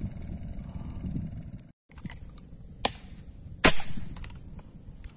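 A single loud shot from a hand-held fish-hunting gun fired at fish in the water about three and a half seconds in, preceded by a sharp click about a second earlier. Wind rumbles on the microphone in the first part, with a steady high insect whine underneath.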